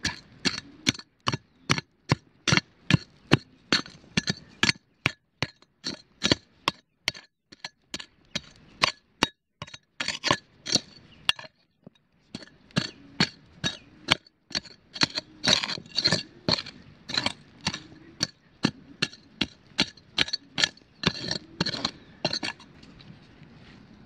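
A metal digging tool striking rocky, gravelly ground over and over, about two to three strikes a second, with a brief pause near the middle. It stops shortly before the end.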